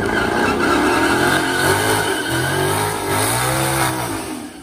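Burnout by a twin-turbocharged 2019 Ford Mustang GT's Coyote 5.0 V8 through a Corsa Xtreme exhaust: the engine revs up and down repeatedly while the rear tires spin and smoke. The engine drops off about four seconds in.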